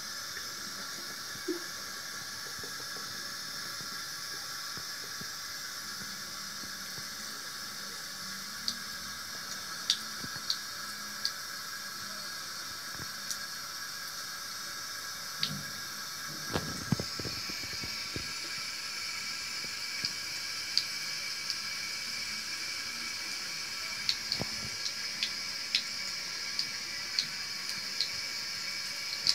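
Thin stream of water running from a tap into a bathroom washbasin, a steady hiss, with scattered sharp little ticks throughout and a few low knocks about halfway through.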